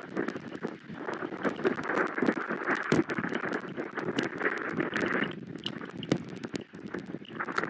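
Steady rain falling, with many sharp, irregular drop hits.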